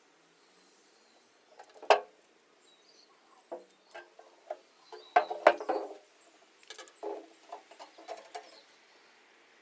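Handling knocks and rattles from a metal olive oil can being turned over and set down on a wooden table, with a ruler laid against it. There is a sharp knock about two seconds in, a cluster of louder knocks and rattles around the middle, and lighter ones near the end.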